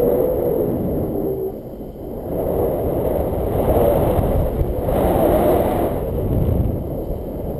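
Wind from a tandem paraglider's flight buffeting an action camera's microphone: a loud, rumbling rush that dips briefly about two seconds in, then picks up again.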